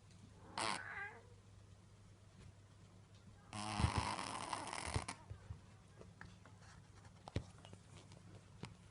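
A pet cat snoring in its sleep: a short snore about half a second in, then a longer, louder snore about three and a half seconds in, with a few faint clicks afterwards.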